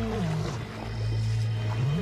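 Young male lion roaring, one call trailing off near the start and another rising near the end, over background music with a steady low drone. He is calling out repeatedly to locate a lost companion.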